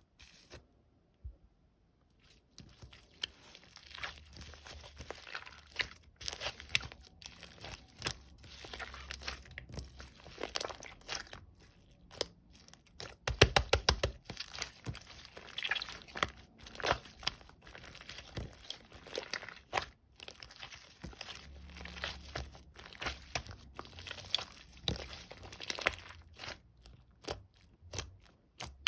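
Slime being squished, folded and stretched by hand, giving crunchy crackles and popping clicks, with a dense run of rapid pops about halfway through.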